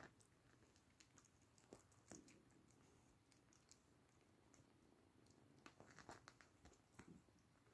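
Near silence with faint, scattered small clicks and rustles: kittens biting and pawing at a feathered bird toy on a fabric cushion.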